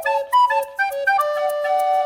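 Background music: a flute-like melody of short notes, with one longer held note about halfway through.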